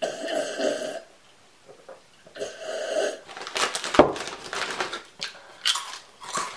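Noisy slurping from a mug, twice, then a sharp knock about four seconds in as the mug is set down on the table. After that comes crinkling of a chip bag and loud open-mouthed chewing of chips.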